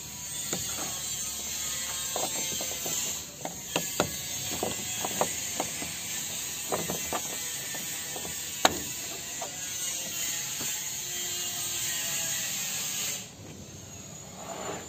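Irregular light clicks and rattles of plastic, the sharpest about two-thirds of the way through, as the Mitsubishi L300's brake fluid reservoir cap is screwed shut and its cover closed. Under them runs a steady hiss that stops near the end.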